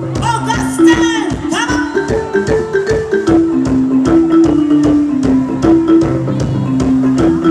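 Live band music: a drum kit keeping a steady beat under a bouncing, mallet-like melodic line, with sliding high notes in the first two seconds.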